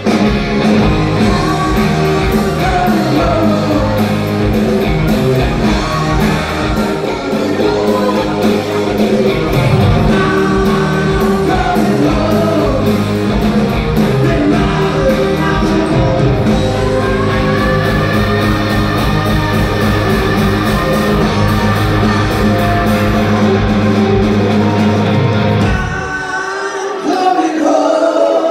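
Live rock band playing a song with lead vocals, electric guitars, keyboard and drums, in a large hall's reverberant sound. Near the end the low end drops out briefly and the music goes quieter, then the full band comes back in.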